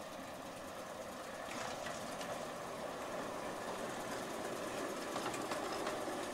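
British Rail Class 09 diesel shunter running on the track, its English Electric six-cylinder diesel engine getting steadily louder as the locomotive draws nearer, with a few faint clicks.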